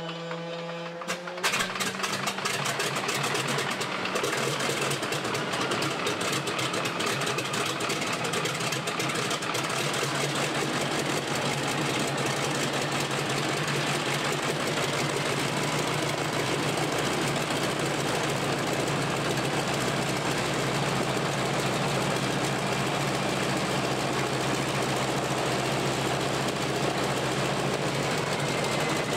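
Radial engine of a Mitsubishi Zero replica being started after re-assembly: the starter's whine rises as it cranks, the engine catches about a second and a half in, then settles into steady running at idle.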